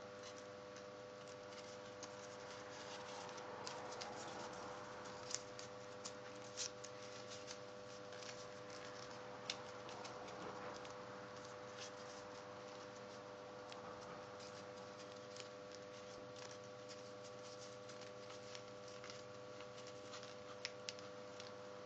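Folded white paper being pinched and creased by fingers: faint rustling with scattered small crackles and clicks, a few sharper ones now and then.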